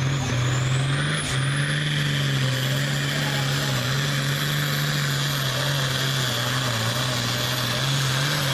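Hot farm class pulling tractor's turbocharged diesel engine running hard with a steady, slightly wavering note. A high turbo whistle climbs over the first two seconds, then holds steady.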